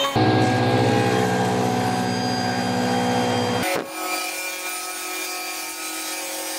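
CNC router spindle running as it mills the surface of an epoxy-and-wood slab. Near the middle the sound changes abruptly to a table saw running as it cuts through the edge of the slab. Both are steady machine sounds with held tones.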